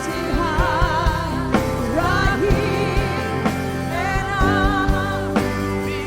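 Live worship band playing a slow Christian song: sustained keyboard chords, a wavering melody line and a steady drum beat.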